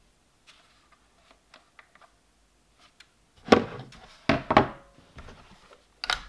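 Plastic RC stick transmitters being handled and set down on a wooden table. A few light clicks come first, then heavier knocks about three and a half and four and a half seconds in, and another just before the end.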